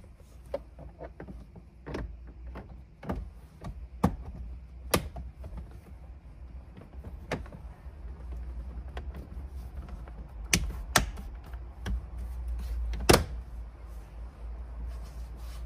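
Plastic interior trim around a Honda Civic's steering column being pushed and clicked into place: scattered sharp clicks and knocks, the loudest about 13 seconds in, over a low steady hum.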